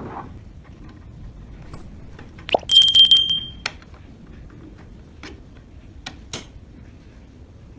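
Small metal parts clicking and clinking, with a loud rapid metallic rattle that rings for about a second, starting about two and a half seconds in.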